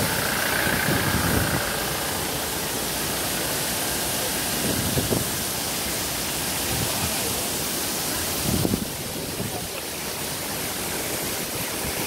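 Steady rushing hiss of a waterfall spilling in thin streams down a steep rock face, with a few brief low buffets on the microphone.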